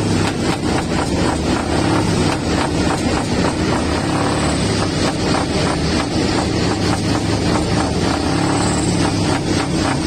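Semi-truck's diesel engine running loud and steady through its exhaust while its noise level is measured for a decibel contest.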